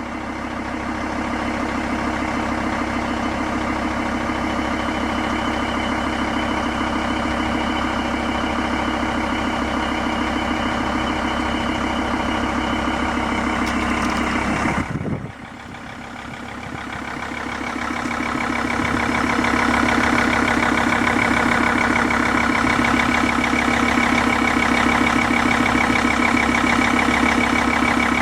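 Mercedes-Benz W211 E-Class engine idling with the knocking that the owner is recording. The sound drops suddenly about halfway through, then builds back up and holds steady, louder than before.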